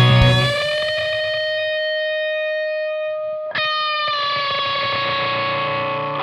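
Electric guitar played through effects, holding long sustained single notes: one note rings for about three and a half seconds, then a new note is picked and held, bending slightly down in pitch.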